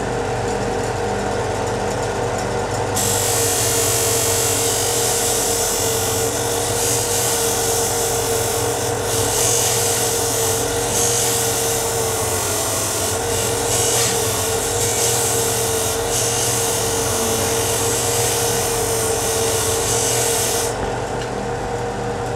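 Parkside PBTS 370 B2 belt and disc sander running with a steady motor hum. From about three seconds in, the end of a wooden board is pressed against the sanding disc, adding a sanding hiss that stops shortly before the end. The motor's pitch dips briefly about halfway through as it is loaded.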